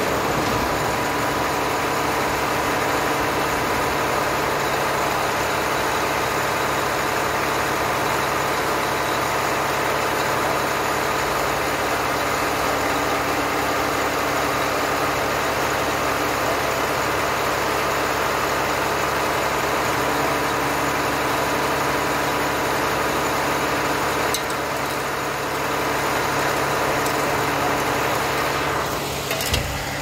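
Mack concrete pump truck's diesel engine running steadily, with a brief knock near the end.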